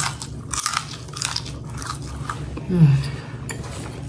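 Close mouth sounds of biting and chewing crispy baked pork belly, crackly crunches repeating through the chews. A brief hum comes about three seconds in.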